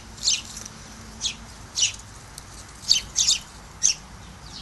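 Sparrows chirping: short, high chirps every half second to a second, bunched closer together about three seconds in.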